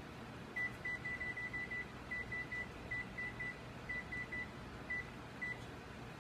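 Electronic beeping: about eighteen short, high beeps of one pitch in an uneven run, some in quick groups, over a faint steady room background.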